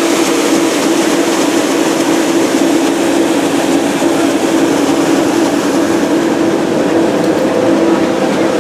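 Steady running noise of a river cruise boat underway: a constant engine hum under a loud, even rushing hiss.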